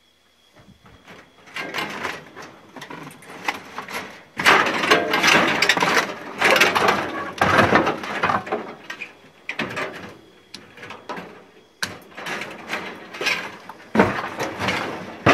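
Metal rattling and scraping in irregular bursts as coil springs are worked loose from an old cast iron bed frame with a hand tool, among loose scrap.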